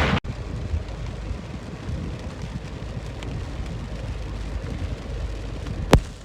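Loud rain noise cuts off abruptly just after the start, leaving a steady low vehicle rumble with light rain behind it, heard from inside the vehicle. A single sharp knock comes near the end.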